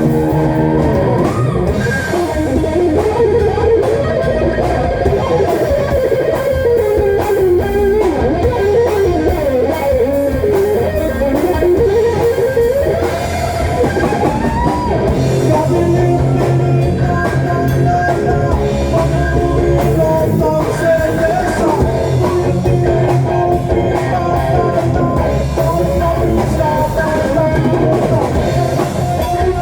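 Rock song playing through a home hi-fi amplifier and speakers, with an electric guitar lead over bass and drums. The lead bends and wavers for the first half, then settles into held notes about halfway through.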